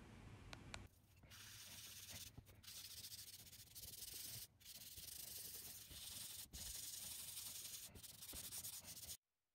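Faint scratching and rubbing of pencil and a small rubber or tissue on sketchbook paper, as the drawing is shaded and blended. It comes in stretches broken by sudden brief cut-outs and stops about nine seconds in.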